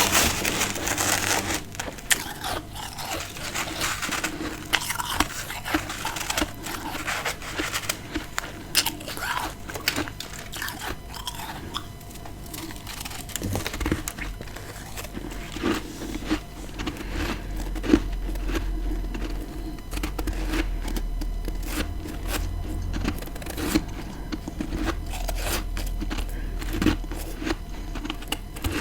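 Close-up crunching and chewing of freezer frost grown with a humidifier: dense, irregular crackly bites, thickest at the start. A low steady hum comes in underneath about halfway through.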